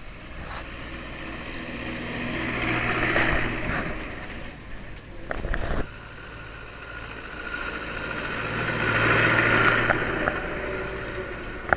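Tractor engine running, growing louder and then fading twice, as if passing close. There is a short clatter about halfway through.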